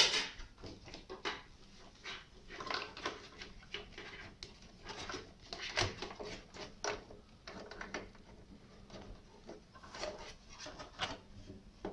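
Plastic and metal handling noise as an IDE cable connector is worked onto the back of a PC optical drive inside the case: scattered faint clicks, scrapes and rustles, with a few sharper knocks.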